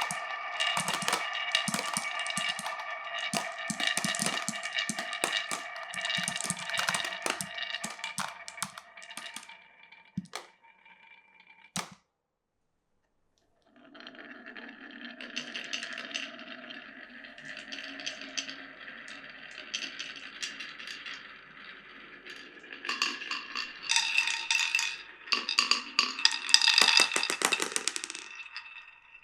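Glass marbles rolling and clattering down a wooden marble run, with many sharp clicks over a ringing rolling tone. The sound breaks off into silence for about two seconds, then returns as a steadier rolling rumble that builds to a burst of rapid clicking near the end.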